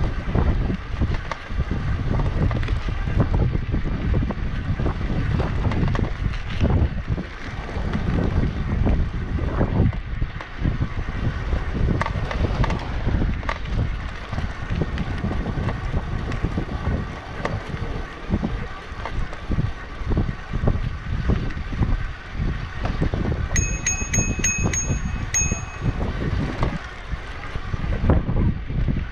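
Wind buffeting the microphone of a riding cyclist on a moving folding e-bike, a loud, rough, constantly fluctuating rumble. A bit over three quarters of the way through, a few short high beeps come, then one held beep.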